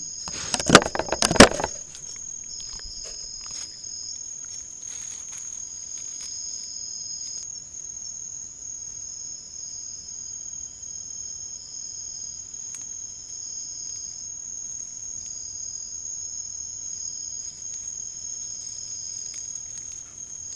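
Loud knocks and scrapes in the first second and a half as a fox noses at the trail camera right against its microphone. Throughout, night insects keep up a steady high chorus in two unbroken tones.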